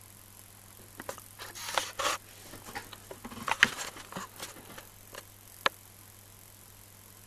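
Small high-voltage spark gap crackling and snapping in irregular clusters of sharp clicks, loudest a little past the middle, over a faint steady low hum.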